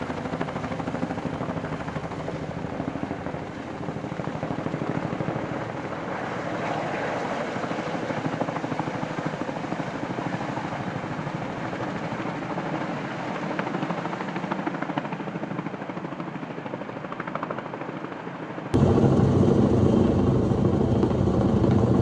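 Vertol tandem-rotor heavy-lift helicopter carrying a slung log, its rotors beating in a steady, rapid chop. About three seconds before the end the sound jumps abruptly louder and deeper, the helicopter now close overhead.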